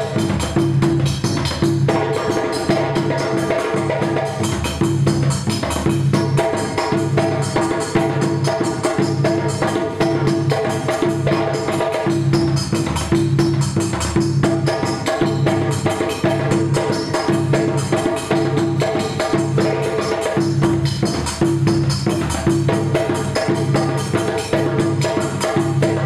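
West African drum ensemble music: djembe and dunun drums playing a fast, steady rhythm over a repeating low drum beat.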